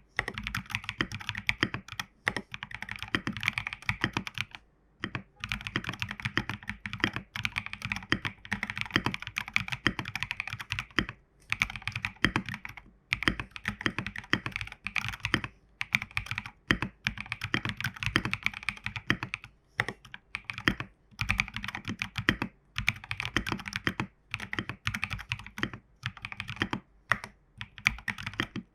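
Continuous fast typing on a custom mechanical keyboard with stock Prevail Epsilon tactile switches and MT3 keycaps, dense keystrokes broken by brief pauses every few seconds.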